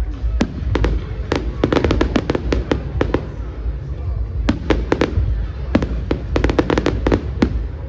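Fireworks display: rapid volleys of sharp cracks and bangs in two dense clusters, about two seconds apart, over a steady low rumble.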